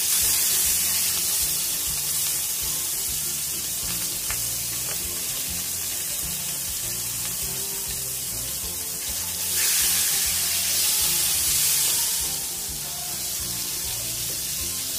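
Marinated rui fish pieces sizzling in hot oil in a frying pan, a steady high hiss that surges louder at the start and again about ten seconds in.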